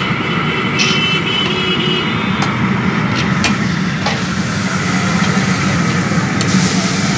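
Steady roar of a large open-flame burner under a kadhai of moong dal frying in hot oil, with a few sharp metallic clicks from the stirring ladle.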